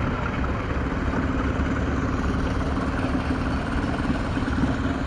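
Tractor engine idling steadily, a fast even low throb with a held hum.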